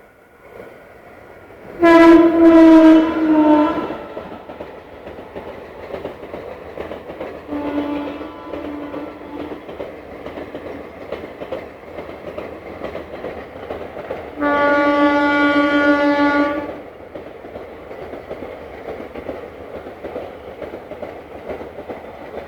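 WAP4 electric locomotive's horn sounding three blasts as the express passes at about 90 km/h: a loud one about two seconds in, a shorter, fainter one near the middle, and another loud one about two-thirds of the way through. The first blast is higher-pitched than the later two. Under the horn the train's wheels rumble and clatter over the rails the whole time.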